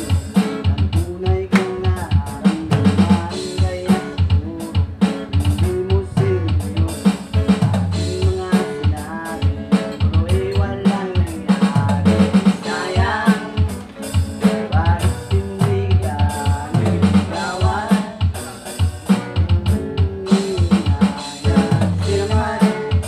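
Music with a full drum kit keeping a steady beat under bass and a singing voice.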